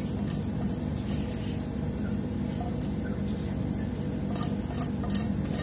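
A spatula scrapes and taps food out of a nonstick frying pan into a glass dish: scattered light clicks and scrapes over a steady low hum.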